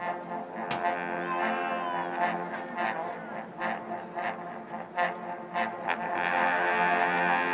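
University marching band playing, brass led by trombones holding sustained chords, with several sharp percussion hits.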